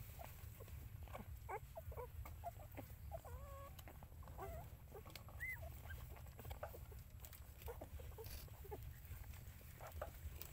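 Nursing puppies squeaking and whimpering, short faint high cries, most of them in the first half, over a steady low rumble.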